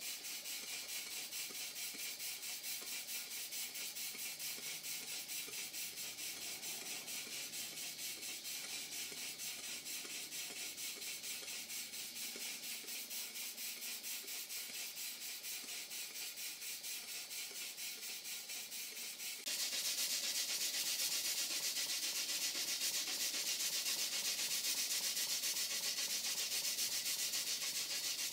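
Model single-cylinder horizontal mill steam engine running on live steam, its exhaust steam hissing in a fast, even beat: the engine is running smoothly and sweetly. About two-thirds through, the hiss suddenly becomes louder and brighter.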